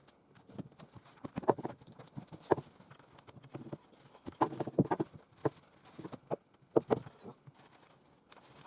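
Scattered light knocks and taps at an uneven pace, several in quick succession around the middle, from objects and tools being handled on a work surface.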